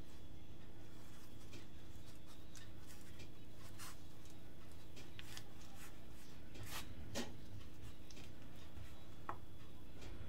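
A hand rubbing and lightly patting water over the surface of flattened bread dough on a wooden board: soft rubbing with a few faint, scattered taps. A steady low hum underneath.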